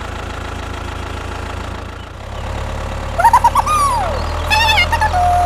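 Steady low engine drone, like a tractor idling, accompanying a DIY toy mini tractor. The drone shifts about two seconds in, and short squeaky high-pitched voice cries come in the second half.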